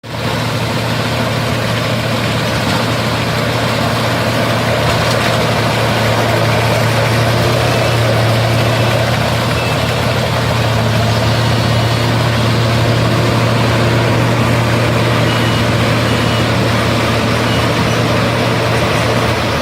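Combine harvester's engine running steadily at an even pitch, a constant low drone with machinery noise over it.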